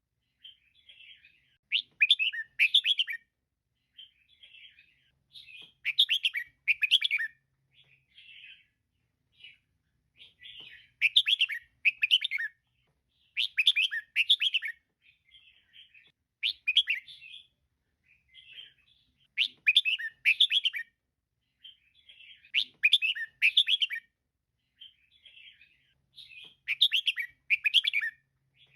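Female red-whiskered bulbul calling: about eight loud bursts of quick chirping notes, a few seconds apart, with softer short twitters between them.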